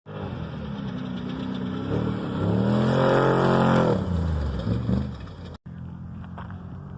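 Spec trophy truck engine running under throttle. Its pitch climbs and it grows loud about halfway through, then the pitch drops and it fades. After a sudden short break near the end, the engine goes on more quietly.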